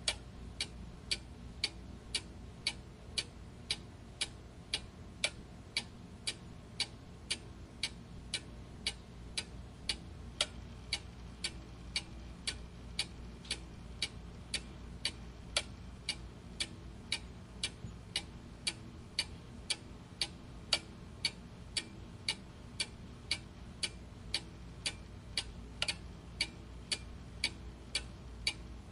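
Clock ticking steadily at an even pace of about two ticks a second.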